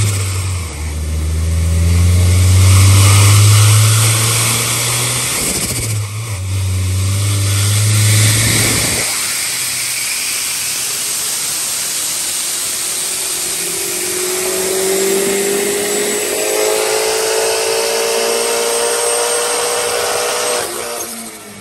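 Turbocharged Honda S2000 four-cylinder engine running with a loud, steady note and turbo rush, dipping briefly twice. About nine seconds in, the engine note drops away, leaving a steady rushing hiss with a faint, slowly rising whine.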